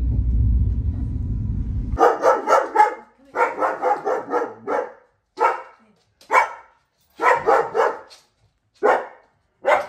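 A low rumble from a moving train, cut off after about two seconds by a large dog, a German Shepherd, barking repeatedly. The barks come in quick runs at first, then singly or in short groups every second or so.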